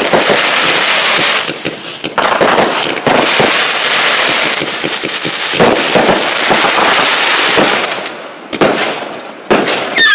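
Fireworks going off in rapid succession: a loud, dense crackling of many sharp pops that eases briefly about a second and a half in, then picks up again and fades near the end.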